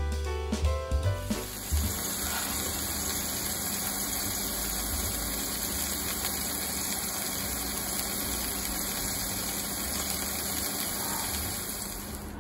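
Drum-kit music stops a little over a second in. Then comes a steady sizzle of meat-stuffed green peppers and shiitake mushrooms frying in oil in a pan.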